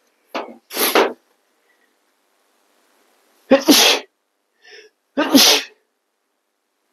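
A man sneezing three times, the sneezes a few seconds apart.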